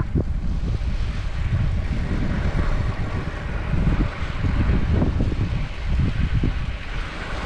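Wind buffeting a bike-mounted action camera's microphone while riding, a low fluctuating rumble with a fainter hiss above it.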